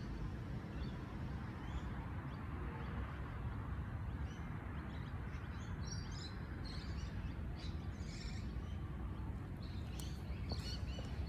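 Outdoor background: a steady low rumble, with small birds chirping, more often from about six seconds in.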